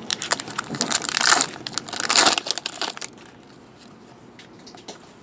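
Trading-card pack wrapper crinkling as it is torn open and crumpled for about three seconds, then only faint handling ticks.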